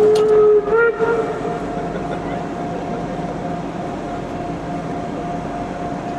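Steam locomotive whistle: a blast of about half a second, then a second, shorter blast, over a steady hum.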